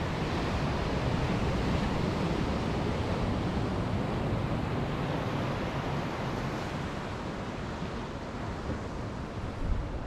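Ocean surf washing over rocks and the shore in a steady rush, with wind buffeting the microphone as a low rumble; it grows a little quieter in the second half.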